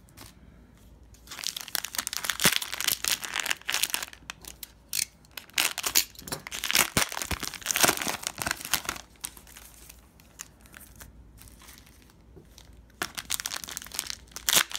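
Cellophane wrappers of Panini Prizm cello packs crinkling and tearing as the packs are torn open by hand. Two spells of crackling, with a quieter pause of a few seconds after the middle.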